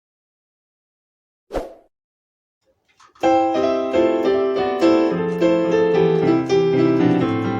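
Piano playing a gentle passage of block chords in drop 2 triad voicings, starting about three seconds in after a single short thump.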